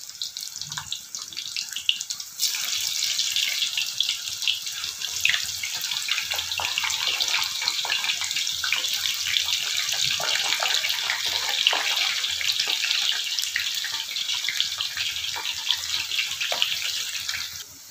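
Parboiled potato chunks deep-frying in hot oil in a kadai: a dense crackling sizzle full of small pops, growing louder about two seconds in and then holding steady.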